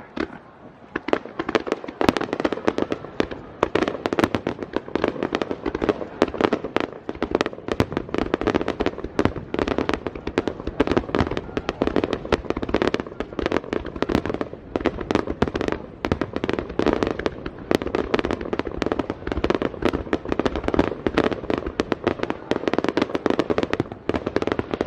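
Aerial fireworks going off in a rapid barrage: dense, overlapping bangs and crackles many times a second. The barrage builds about two seconds in and cuts off suddenly at the end.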